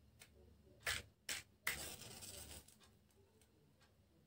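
A match being struck to light a candle in the dark: two sharp strikes about a second in, then a scrape that catches into a hissing flare lasting almost a second.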